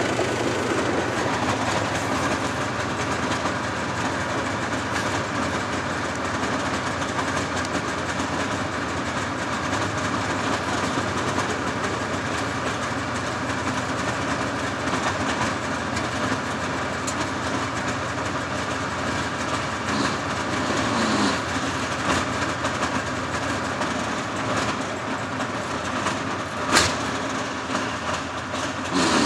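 Heavy tank-chassis tracked recovery vehicle running: a steady diesel engine with its tracks clanking. A single sharp knock comes near the end.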